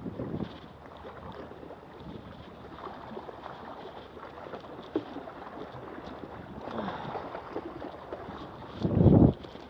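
Wind rumbling on a wearable action camera's microphone, with water lapping against the granite riprap. A strong gust buffets the microphone near the end.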